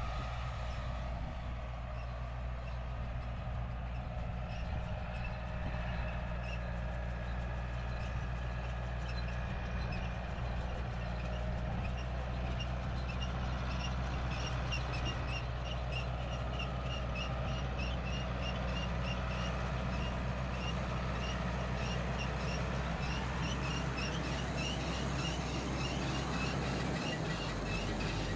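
Farm tractor engine running steadily, with a light, rapidly repeating high chirp over it for the second half.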